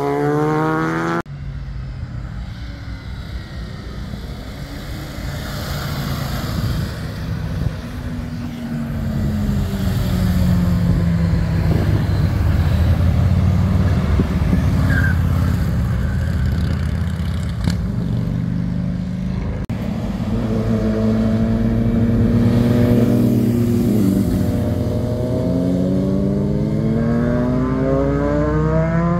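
Motorcycles and a van passing through a hairpin bend, their engines running. Engine pitch rises at the very start and again over the last few seconds as a motorcycle accelerates out of the turn.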